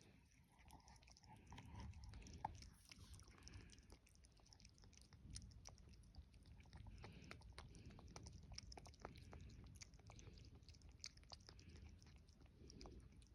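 A tortoiseshell cat chewing its food, faint with many small irregular crunching clicks.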